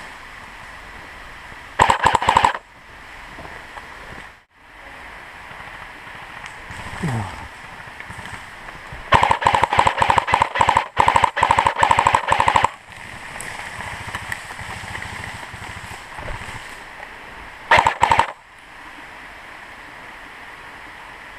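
Airsoft electric gun firing full-auto bursts: a short burst about two seconds in, a long broken string of bursts from about nine to thirteen seconds, and another short burst near the end.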